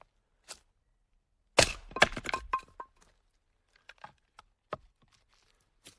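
A burst of sharp cracking and snapping, like something being broken, starting a little over a second in and lasting about a second, followed by a few scattered light clicks and knocks.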